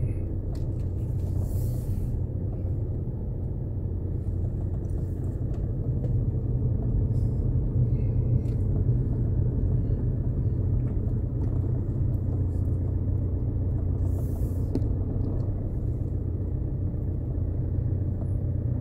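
Steady low road rumble of a car driving along, heard from inside the cabin; it swells a little about a third of the way through.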